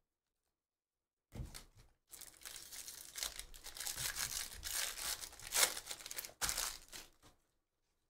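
Foil wrapper of a 2019 Bowman Draft jumbo pack of baseball cards being torn open and crinkled by hand. The crackling starts about a second in, is loudest in the second half with a short break, and stops a little before the end.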